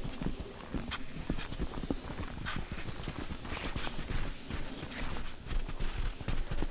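Irregular crunching steps on snow, each a short sharp click, over a low rumble of wind on the microphone.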